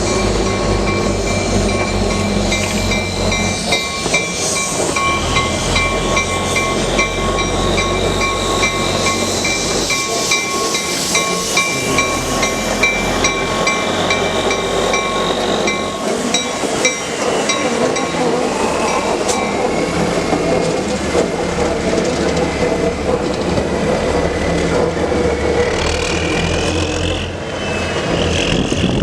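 Durango & Silverton narrow-gauge train rolling past, its wheels running over the track in a steady rumble. For roughly the first half there is a fast, even, high-pitched clicking over the rail joints, which then fades into a smoother running noise.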